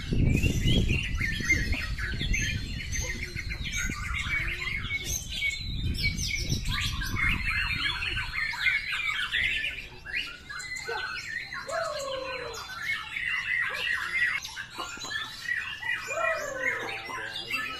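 Several caged white-rumped shamas singing at once, a dense chorus of overlapping, quickly changing whistled phrases and harsh calls. A low rumble sits under the song for about the first half.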